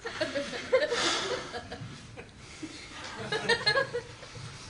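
Laughter, chuckling in two bursts: one in the first second and another about three seconds in.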